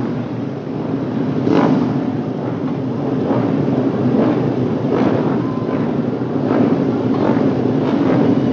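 Several racing motorcycles' engines running as the bikes pass along the circuit straight, a steady, loud mechanical noise.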